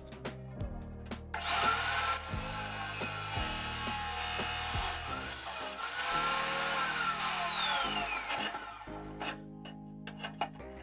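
P.I.T. abrasive cut-off saw spinning up about a second in and grinding through steel stock, its disc whining under the cut. Near the end the motor winds down with a steeply falling whine. Light metal clinks from handling the steel come before and after.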